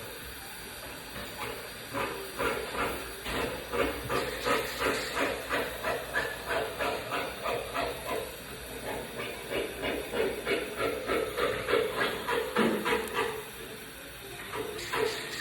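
Welding hiss coming in regular pulses, roughly three a second, beginning about two seconds in and easing off near the end.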